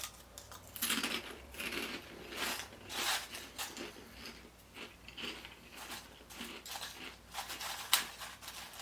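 Someone chewing crunchy puffed pork rinds: irregular crisp crunches, with a sharp click about eight seconds in.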